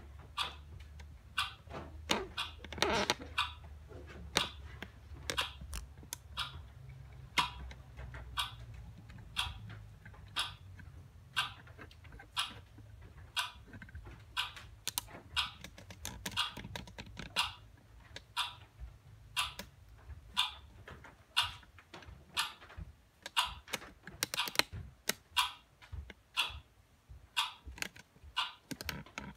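A long series of sharp clicks and taps, roughly one or two a second and unevenly spaced, over a low steady hum that fades out about two-thirds of the way through.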